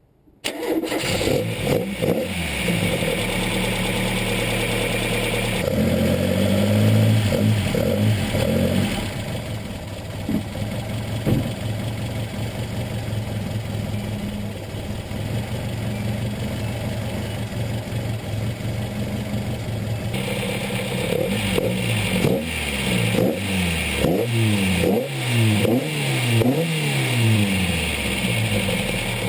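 Modified 2.0-litre Pinto SOHC four-cylinder engine of a 1978 Ford Capri, on twin carburettors, running. The throttle is blipped: the revs rise and fall about six seconds in, then a run of quick blips comes in the last third.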